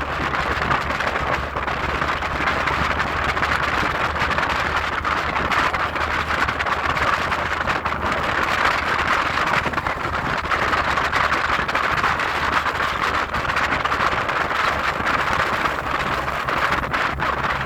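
Steady hiss of rain, with a low steady hum underneath.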